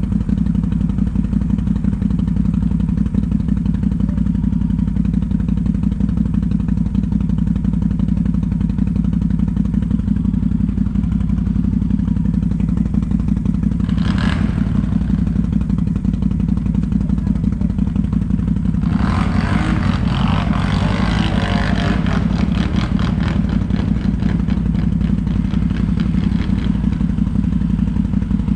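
ATV engine running at a steady, unchanging speed. There is a short burst of noise about halfway through, and a few seconds of clatter and scraping later on.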